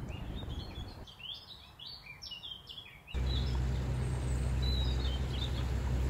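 Small birds chirping outdoors in short, quick rising calls for about three seconds. About three seconds in, the sound changes abruptly to a louder, steady low rumble, with a few faint chirps above it.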